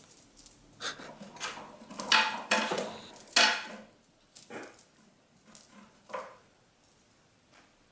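A cat pawing at a dangling sparkly toy and scrabbling against a wooden cat tower: a quick run of scratchy rattles and knocks, loudest in the first half, then a few fainter ones tailing off.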